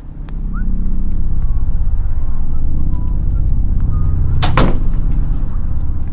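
A loud, deep rumble with a fine, even pulsing starts suddenly and holds steady. About four and a half seconds in comes one sharp metallic rattle as the door handle is grabbed.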